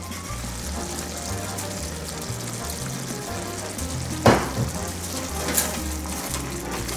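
Food sizzling in a frying pan under background music with a steady beat. A sudden loud hit or hiss comes about four seconds in, and a smaller one just over a second later.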